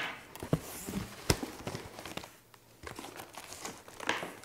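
Cardboard shipping box being pulled open by hand: stiff cardboard flaps scraping and rustling, with scattered knocks and one sharp knock a little over a second in.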